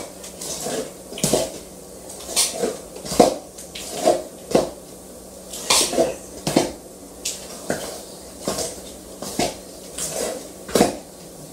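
A metal spoon stirring thick fruit cake batter by hand in a stainless steel mixing bowl. It clinks and scrapes against the bowl one or two times a second in an uneven rhythm.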